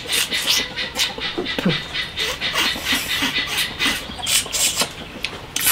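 Repeated wet sucking and slurping as stir-fried river snails are sucked out of their shells, a quick run of short hissy sucks.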